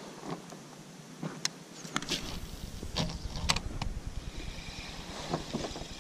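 Handling noise in an inflatable fishing boat: several sharp knocks and clicks, with a low rumble setting in about two seconds in.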